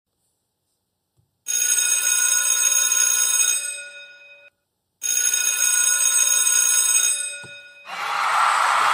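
A bell-like ring sounds twice, each ring about three seconds long with its upper tones fading toward the end, separated by a short silent gap. A steady hiss starts near the end.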